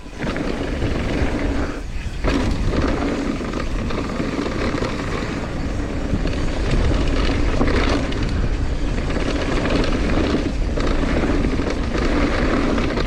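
Mountain bike descending a dusty dirt trail: continuous tyre noise and rattling over dirt and rocks, with heavy wind rushing over the camera microphone, dipping briefly about two seconds in and again near the end.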